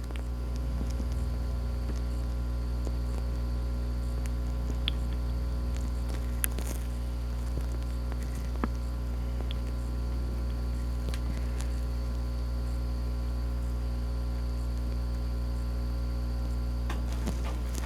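Steady electrical hum made of a stack of even tones, with a few faint ticks; it starts and stops abruptly.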